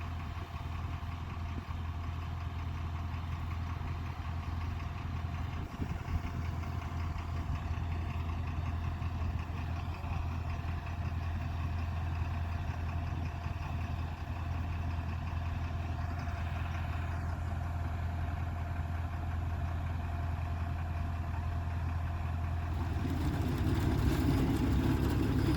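A heavy farm engine running steadily with a low, even hum. It grows louder near the end.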